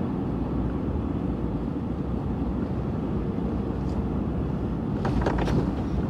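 Steady low rumble of a vehicle driving along a bumpy road, heard from inside the cab, with a brief clatter about five seconds in.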